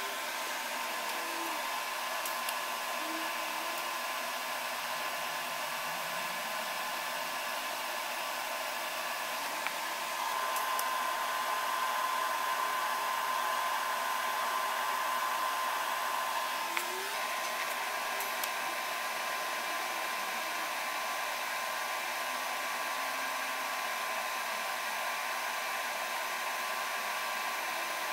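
TIG welding on steel angle iron, laying stitch welds: a steady hiss with a faint high hum, a little louder for several seconds in the middle of the stretch.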